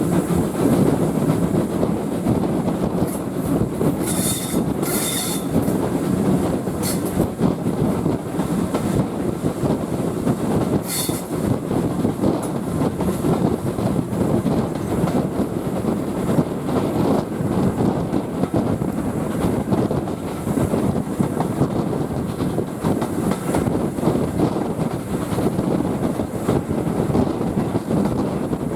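Heritage railway train running along the track: a steady rumble of wheels on rail, with short high-pitched wheel squeals about four to five seconds in and again at about eleven seconds.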